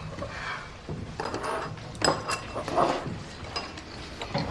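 Dishes and eating utensils clinking and knocking as food is served and eaten, with a few short ringing clinks about two seconds in.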